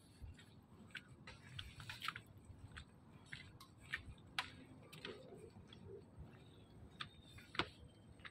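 Footsteps on a wooden plank boardwalk, with irregular sharp clicks and knocks from the planks.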